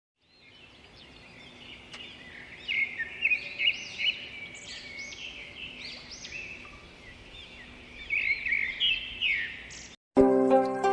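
Several small birds chattering and chirping together in a morning chorus, fading in at the start, with livelier bursts of calls around three seconds in and again near eight to nine seconds. The birds cut off abruptly at about ten seconds, and plucked-string music follows.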